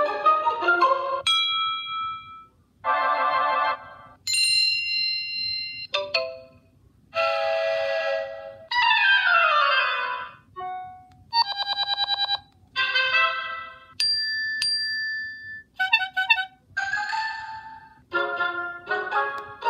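A run of first-generation Apple iPad alert tones played one after another, about a dozen short chimes and jingles with brief gaps between them. About halfway through, one sweeps steadily downward in pitch, and a little later one is a fast run of clicks.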